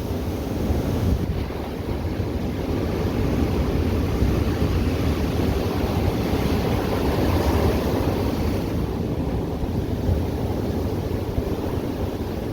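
Ocean surf breaking and washing on a beach, a continuous roar of water that swells slightly and eases, with wind rumbling on the microphone.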